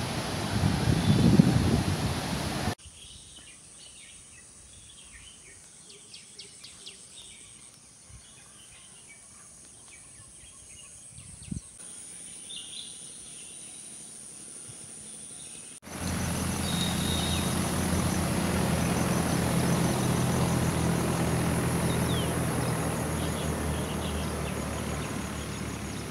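Outdoor ambience in three parts. It opens with a loud, low rumbling noise, drops suddenly to a quiet stretch with scattered bird chirps and insect ticks, then switches at about two-thirds of the way through to a steady noise with a low hum underneath.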